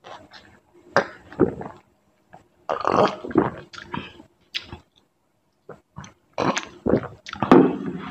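Loud, close-miked mouth sounds of a person drinking water and eating pani puri: gulps, chewing and throaty bursts that come in irregular clusters with short pauses between them.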